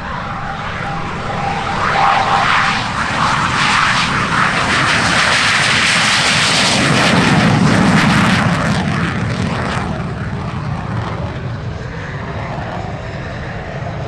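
Jet engine of a Navy T-45 Goshawk trainer at takeoff power as it lifts off and climbs away, the noise building to its loudest about seven to eight seconds in and then fading.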